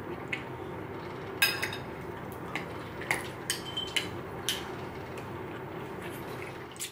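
Chopsticks clicking against a ceramic bowl and dishes, a scattered series of light clinks with the sharpest about a second and a half in, over a steady low background hum.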